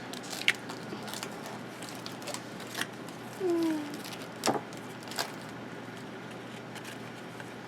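Quiet handling of trading cards and their packs: a few light taps and clicks as cards are handled and set down, with a short falling hum from a voice about halfway through.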